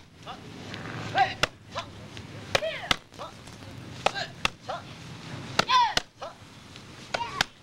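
Bare-foot karate kicks smacking a hand-held kicking paddle: a series of sharp smacks about every second, some in quick pairs, several of them with a short shouted kiai from the kicker.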